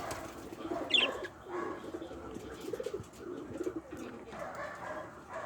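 Domestic pigeons cooing over and over in low warbling phrases, with one short, sharp, high chirp about a second in.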